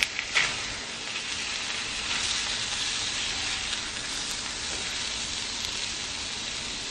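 Fish fillets sizzling steadily in hot fat in a cast-iron skillet, with a few sharp clicks of a spatula against the pan about half a second in.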